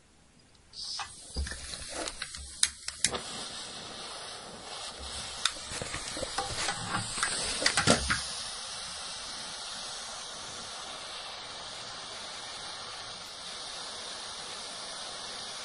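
Gas hissing out of a radiator bleed valve opened with a bleed key, starting about a second in with clicks and knocks over the first eight seconds, then settling into a steady hiss. The gas is hydrogen, which the plumber gives as a sign of corrosion inside the heating system.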